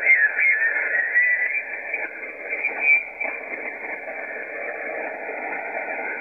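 Shortwave transceiver receiving in lower sideband while the dial is tuned slowly up the 40-metre band: a thin, band-limited hiss of band noise with mistuned single-sideband voices squawking and warbling past in the first half, then mostly noise with faint muffled voices.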